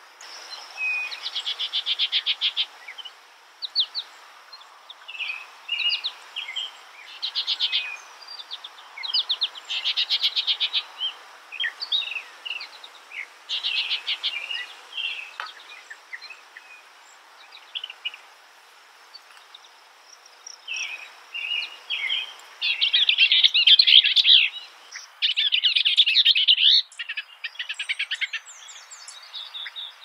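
A songbird singing in short, varied phrases separated by brief pauses, many of them rapid trills of repeated notes. The loudest phrases come near the end.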